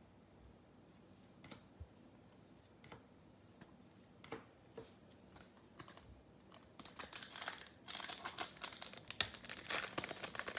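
A few faint clicks of trading cards being handled. Then, from about seven seconds in, the crinkling of a 2021 Bowman baseball card pack's plastic wrapper as it is worked open, growing louder near the end.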